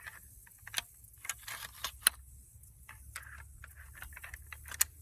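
Shotshells being pushed one at a time into the tubular magazine of an original Winchester Model 1887 12-gauge lever-action shotgun, past the held-down lifter: a string of sharp metallic clicks with light scraping between them, the sharpest click near the end.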